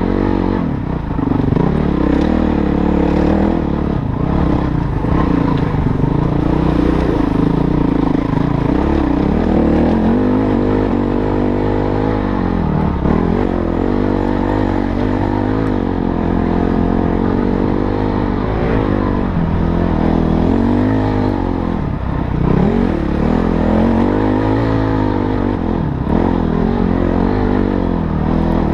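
Motorcycle engine running throughout, its pitch rising and falling again and again as it is revved up and eased off.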